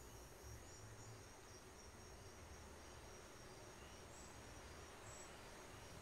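Faint chirping of insects, a high, evenly pulsing trill, over a low rumble.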